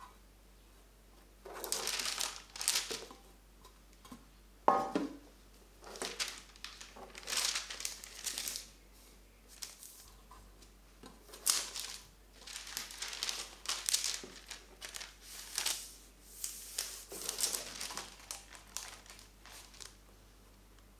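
Parchment paper rustling and crinkling in irregular handfuls as it is pressed and creased into folds around a metal loaf pan, with one sharper knock about five seconds in.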